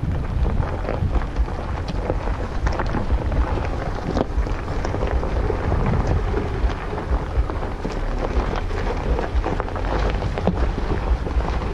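Jeep Wrangler JLU rolling down a rough gravel road: a steady low rumble of tyres and drivetrain with many small clicks and crackles of stones under the tyres, and wind buffeting the microphone.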